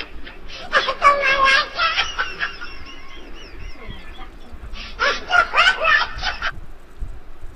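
Human laughter in two bouts, the first about a second in and trailing off, the second around five seconds in, then dying away near the end.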